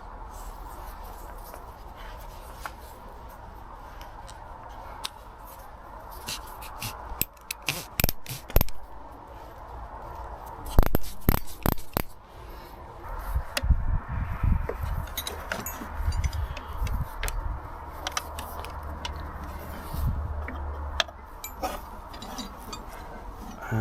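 Old metal hand tools being handled and rummaged in a wooden tool box: irregular clicks, knocks and scraping, with a cluster of sharper clicks about halfway through.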